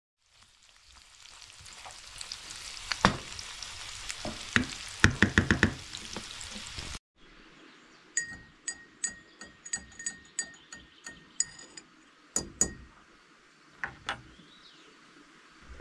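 Food sizzling in a pan, with a few scrapes and clicks of a utensil stirring it. After an abrupt cut, a quieter run of light ringing clinks comes, about three a second, followed by a couple of knocks.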